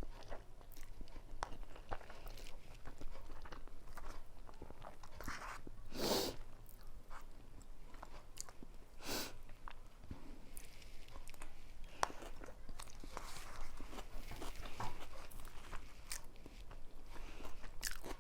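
A person eating noodles close to the microphone, with wet chewing and short mouth clicks and smacks throughout. Two louder sounds come about six and nine seconds in.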